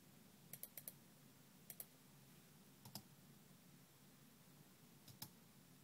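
Faint computer clicks as folders and a photo are opened: a quick run of four clicks about half a second in, a double click near two seconds, a single click near three, and a double click just past five seconds.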